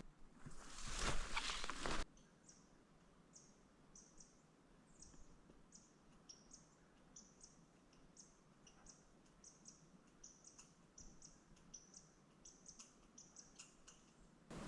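Small bird's high, short chirps, repeated irregularly a few times a second over a quiet background. They follow a couple of seconds of loud rustling noise that cuts off abruptly.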